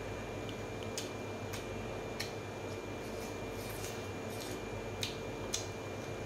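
Smoked pork being pulled apart by hand and eaten: a few sharp clicks and soft wet sounds over a steady background hum.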